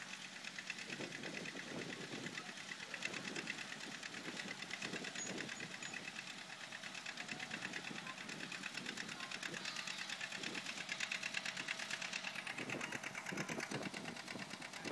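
John Deere 60's two-cylinder engine running hard under load as the tractor pulls a weight sled, with a fast, even popping rhythm.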